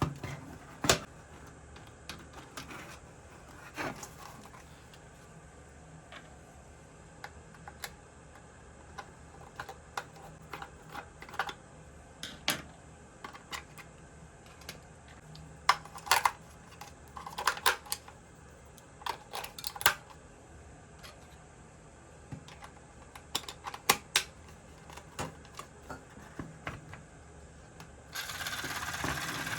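Irregular clicks and taps of small plastic toy kitchen parts and packaging being handled, some sharp and loud, with a steady buzz like a small toy appliance's motor switching on near the end.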